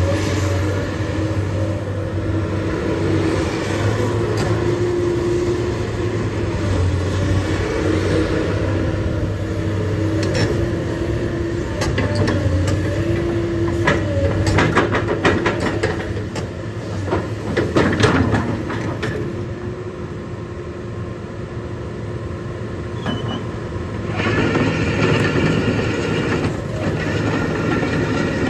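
Komatsu PC220 hydraulic excavator's six-cylinder diesel engine running under load as the boom, arm and bucket are worked, with a wavering hydraulic whine over the engine hum. A run of sharp metallic clanks and knocks comes in the middle, and the machine grows louder and harsher near the end.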